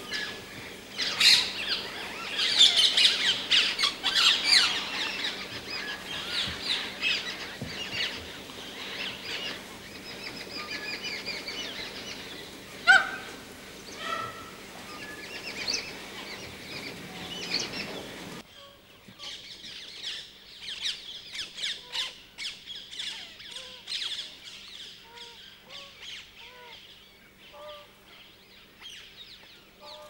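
Many small birds chirping and calling together in a dense chorus. About eighteen seconds in the background hiss drops away abruptly and the chirping carries on more sparsely, with short soft rising-and-falling notes lower in pitch.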